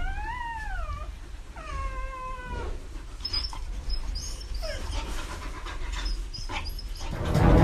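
A pet animal giving two drawn-out cries, the first rising then falling in pitch, the second held fairly level, followed by a few faint clicks and knocks.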